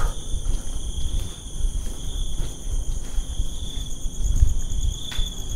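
Crickets and other insects trilling steadily in several high pitches, over uneven low rumbling and scuffing close to the microphone, with a faint click about five seconds in.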